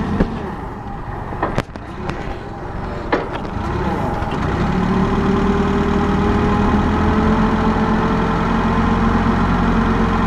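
Propane-fuelled Cat 2C6000 forklift running as it drives across pavement: a few sharp knocks and rattles in the first three seconds, then from about four seconds in a steadier, louder engine note with a faint whine over it.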